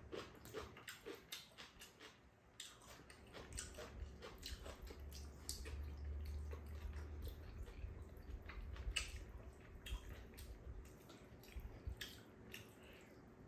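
Two people eating tteokbokki: wet chewing and lip smacks on chewy rice cakes, with many small clicks of chopsticks against bowls and the pan. A low rumble runs through the middle.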